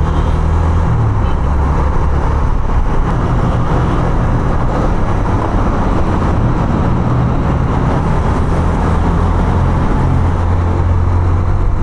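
Honda CB150F single-cylinder motorcycle engine running under way, its note shifting about a second in, over steady road and wind noise.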